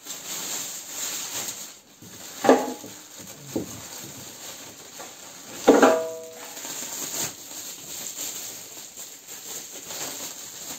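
Plastic packing film rustling and crinkling as it is pulled off an engine in a cardboard box, with two sharp knocks, about two and a half and six seconds in, the second one the loudest and briefly ringing.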